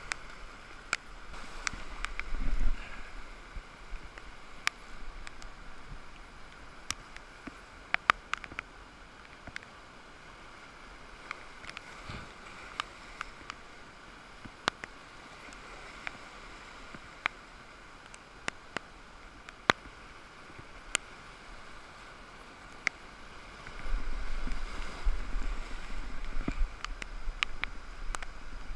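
Ocean surf washing in and out around shoreline boulders, a steady rushing hiss, with many scattered sharp clicks throughout. Wind buffets the microphone in low rumbling gusts about two seconds in and again near the end.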